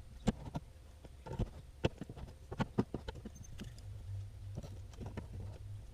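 Irregular light taps and knocks of hands handling the roof fan's plastic mounting sleeves, with a low hum in the second half.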